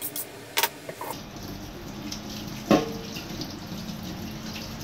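Kitchen tap running into a steel sink from about a second in, with a single sharp knock near the middle. Before it, two short scraping strokes of a kitchen knife on a handheld sharpener.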